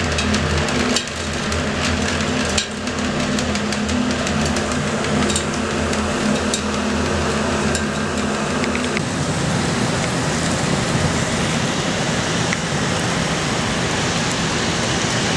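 Elevator car running: a low mechanical hum under a steady rush of noise, with scattered sharp ticks like water dripping in from rain coming down the shaft. The hum stops about nine seconds in, leaving the rushing noise.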